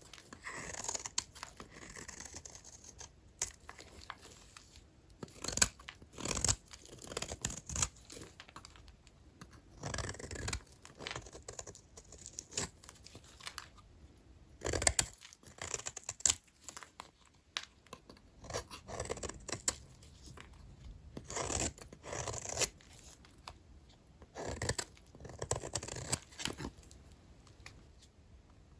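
Knife cutting small, dry vintage hotel soap bars: short crackly scraping cuts that come in irregular bursts, with quiet gaps between them.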